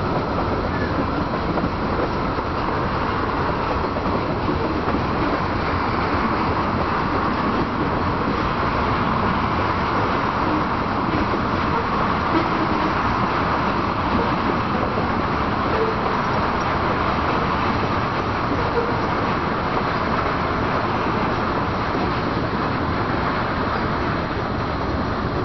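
Freight train cars (tank cars, a covered hopper and boxcars) rolling steadily past, a continuous rumble and rush of steel wheels on the rails.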